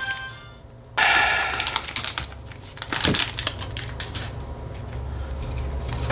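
Foil Pokémon booster pack wrapper torn open about a second in, a sudden loud crinkle. Cards are then pulled out and handled, with scattered light clicks and rustling and a sharper snap partway through.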